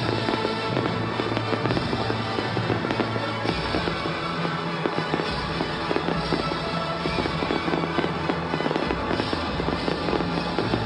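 A fireworks display bursting and crackling, many bangs close together throughout, over loud music.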